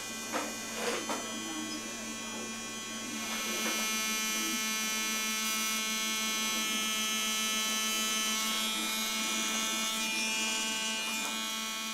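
Cosmetic tattoo machine (permanent-makeup pen) buzzing steadily as it works pigment into the eyebrow, getting a little louder about three and a half seconds in.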